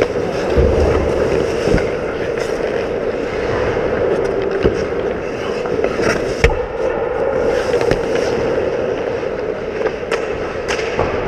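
Ice hockey play: skate blades scraping on the ice and sharp clacks of sticks and puck, the loudest about six and a half seconds in, over a steady hum.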